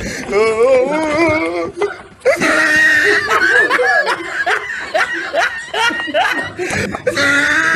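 People laughing, several voices with wavering pitch, breaking off briefly about two seconds in and then coming back louder and higher.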